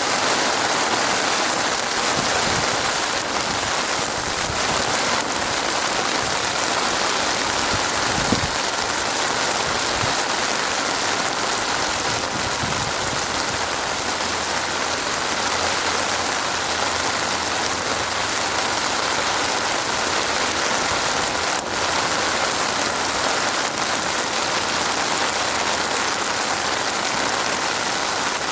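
Steady, heavy rain falling, a dense unbroken hiss of drops, with a few brief low rumbles in the first half.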